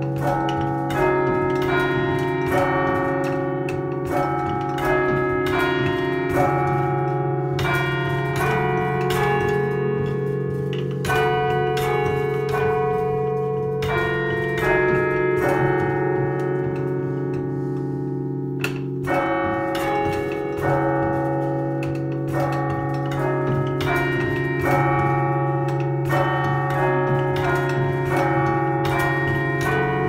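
A chime of thirteen church bells, cast by John Taylor & Co of Loughborough in 1939, played as a tune from a lever chiming frame. The notes are struck one after another, about two a second, each ringing on over the next, above a steady low hum.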